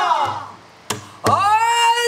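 Woman singing in pansori style: a long held note slides down and breaks off, then after a short pause comes one sharp knock, a stroke on the buk barrel drum, and a new held note swoops up into a steady tone.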